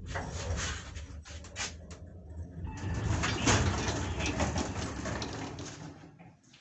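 1976 KMZ passenger lift running, with its guides squeaking and rattling loudly on the rails over a low motor hum. The sound dies away near the end as the car stops.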